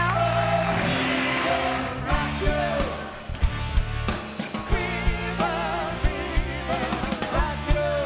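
Studio house band playing live: a singer over violin, keyboard and percussion, with regular drum hits coming in about two seconds in.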